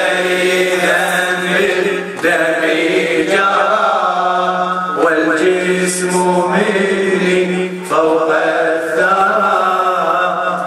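Men chanting a Shia Muharram latmiya in Arabic, a mourning lament sung in repeated phrases that begin again about every three seconds over a steady held drone, with hands striking chests in time.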